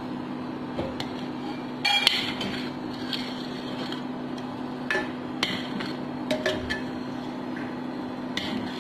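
Metal spoon clinking and scraping against a steel kadhai as boiling milk is stirred: a handful of sharp, separate clinks, one ringing briefly about two seconds in, over a steady low hum.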